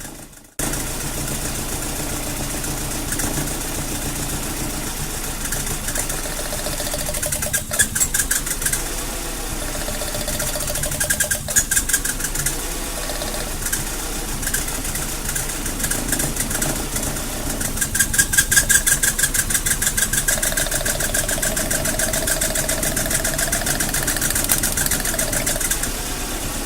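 Mazda Protege four-cylinder engine idling roughly, unevenly, with louder spells of rapid pulsing a few times. The rough idle is a cylinder 2 misfire (code P0302), traced to a faulty spark plug wire.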